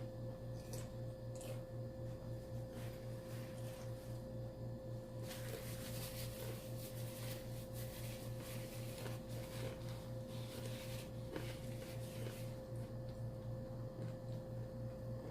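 A person chewing crispy fried chicken gizzards, soft crunching and mouth sounds, denser through the middle stretch, over a steady low electrical hum.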